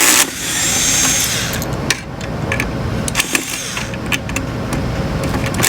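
Electric screwdriver whirring as it backs out a screw from the oscilloscope's main board, one run of about a second and a half at the start, followed by light clicks and handling of the screws and board.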